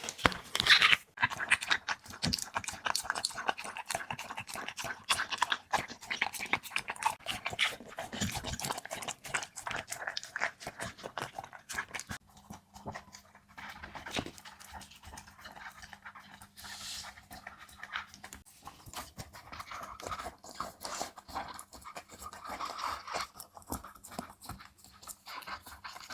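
Border collie eating from its bowl: a fast, uneven run of wet chewing, smacking and licking sounds, busiest in the first half and thinning out later.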